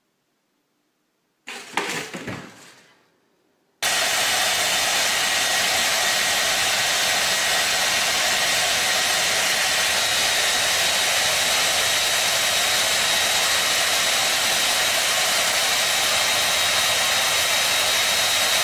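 A handheld hair dryer blowing steadily, with a thin high whine in its rush of air, starting abruptly about four seconds in. Before it, a short sudden clatter that dies away within about a second.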